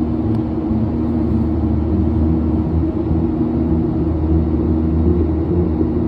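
Aircraft in flight: a steady low drone of engines and airflow with a few held hum tones, as heard from inside the cabin.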